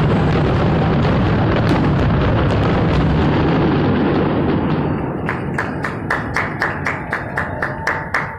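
Aerial fireworks heard from a distance: a dense, continuous rumble of many shell bursts that thins out about five seconds in into a rapid string of sharp pops, about four or five a second.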